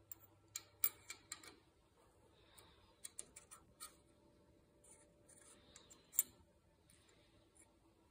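Scattered light metallic clicks and knocks, some in quick runs of three or four, from a hand working the small fittings on the headstock of a Schaublin 102 lathe. The loudest is a single click a little after six seconds.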